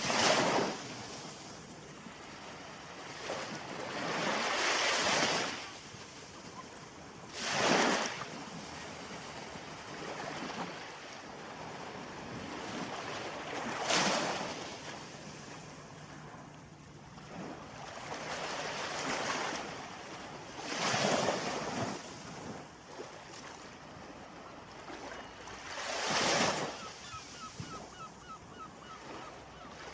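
Ocean waves breaking and washing in, a steady rush of surf that swells into a loud surge every few seconds, about seven times.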